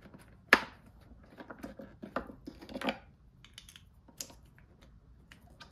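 Irregular plastic clicks and rattles as tail light bulb sockets and their wiring are handled and pushed into the back of a tail light housing, with one sharp click about half a second in.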